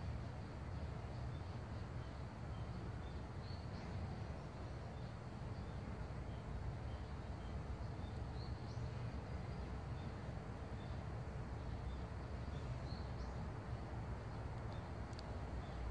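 Outdoor ambience: a steady low rumble, with faint, short high chirps scattered throughout.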